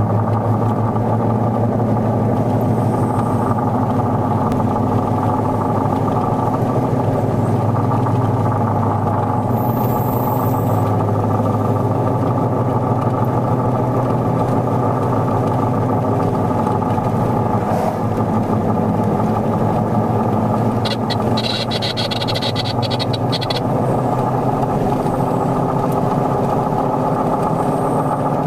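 A vehicle engine running at a steady speed while driving. About three-quarters of the way through there is a brief high-pitched rattle lasting about two seconds.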